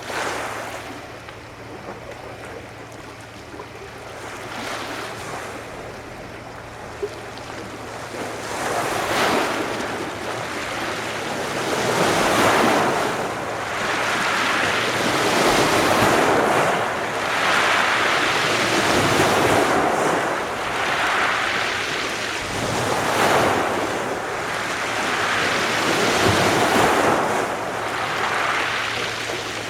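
Adriatic Sea waves washing onto the shore: a soft, low wash at first, then from about eight seconds in a run of louder surges, one every one and a half to two seconds, each swelling and falling away.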